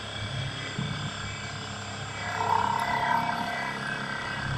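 CNC gantry milling machine's ER32 spindle running steadily with an end mill cutting a metal plate under coolant. The cut grows louder for about a second near the middle.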